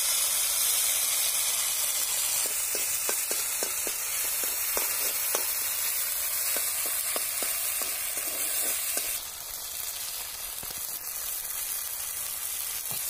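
Red chilli paste sizzling as it hits hot oil with sliced onions and green chillies in a metal kadai, while a spatula stirs it with a run of light scraping taps against the pan. The sizzle eases off about nine seconds in.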